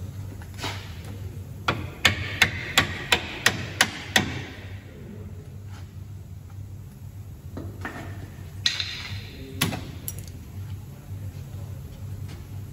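Sharp metal knocks, like hammer blows: a quick run of about seven strikes, roughly three a second, then two single knocks. They come as a tight bolt is worked through the new suspension arm's bush on a VW Polo MK5.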